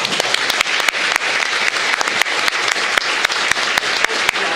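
Audience applauding: many people clapping together, a few sharp single claps standing out from the crowd.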